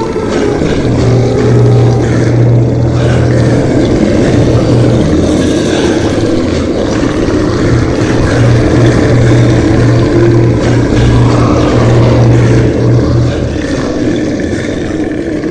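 Loud, continuous low droning rumble with a steady deep hum that drops out briefly a few times, engine-like rather than musical.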